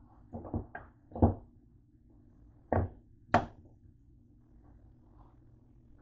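Plastic slotted spoon knocking and scraping against a nonstick pan while stirring chunks of meat and vegetables: six or so sharp clacks in the first three and a half seconds, then it goes still. A faint steady hum runs underneath.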